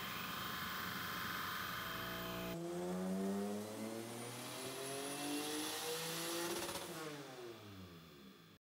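Turbocharged Honda J35 V6 stroker engine in a 9th-generation Accord making a dyno pull. About two and a half seconds in, the revs climb steadily under load with a thin high whine rising alongside. The revs then drop off as the throttle closes, and the sound cuts off suddenly near the end. Before the pull there is a steady shop-noise hum.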